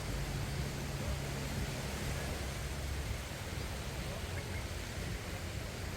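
Steady outdoor beach ambience: wind and distant surf, mostly a low rumble, with a faint low hum that fades out about four seconds in.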